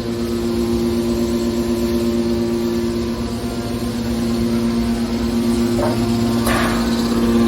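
Hydraulic scrap-metal baler running, its pump and motor giving a steady hum, with two short metallic knocks about six seconds in.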